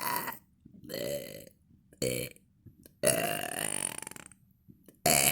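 A woman burping several times in a row, about one burp a second. Most are short; the longest comes about three seconds in and lasts about a second and a half.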